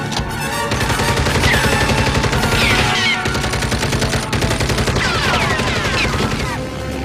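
A twin-barrelled turret machine gun firing a long continuous stream of rapid shots, starting a little under a second in and stopping shortly before the end, with a few shrill falling whines over the gunfire.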